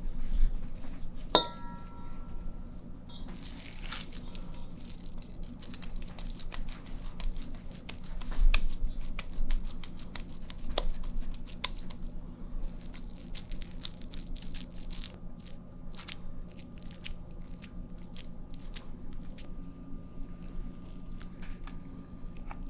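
Kitchen handling noises: crinkling aluminium foil and scattered clicks and taps as minced-meat kebabs are shaped and laid out by hand, over a steady low hum.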